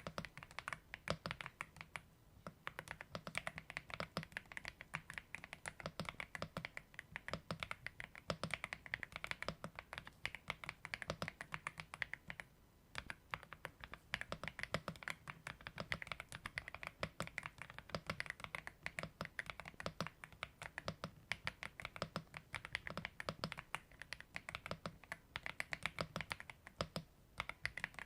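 AULA F75 mechanical keyboard being typed on continuously: a fast, dense stream of key clicks with one short pause about halfway through.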